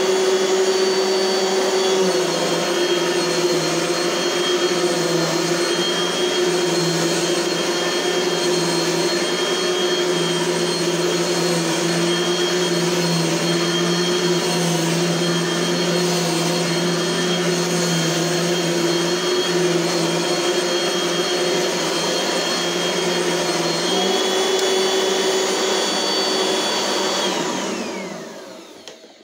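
1990s Dirt Devil Lite Plus upright vacuum cleaner running with a steady motor whine. Its pitch dips slightly about two seconds in and comes back up a few seconds before the end. Then it is switched off and the motor winds down.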